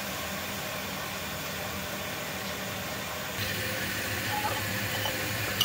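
A steady hiss with a low hum under it. The mix shifts slightly about three and a half seconds in, and a few faint ticks follow.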